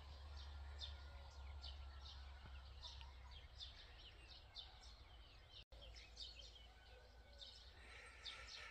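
Faint birdsong: many short, high chirps, several a second, from small birds calling, over a low steady hum.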